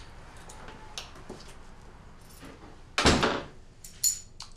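An apartment's front door shuts with a thud about three seconds in, followed a second later by a brief, lighter metallic click.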